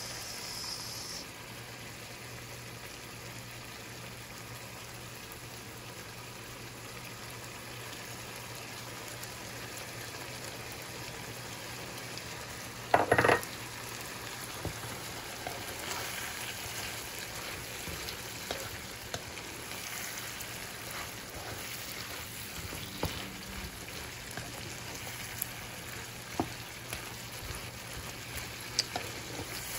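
Shrimp frying in garlic butter and a freshly poured sauce in a frying pan, a steady sizzle with occasional light clicks. One loud sharp clack about 13 seconds in.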